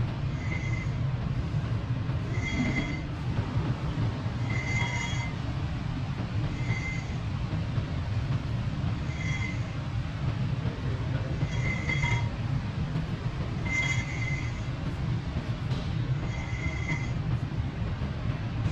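Brake rotor disc being turned slowly by hand, giving a short high squeal about once every two seconds over a steady low hum.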